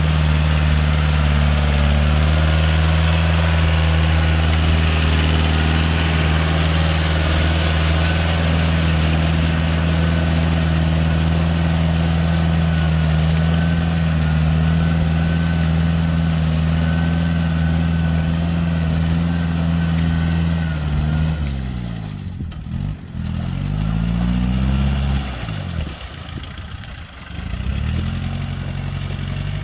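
Farm tractor's diesel engine running steadily under load as it works a flooded rice paddy. About 21 and again about 25 seconds in, the engine pitch sweeps down and back up, with a brief drop in loudness each time.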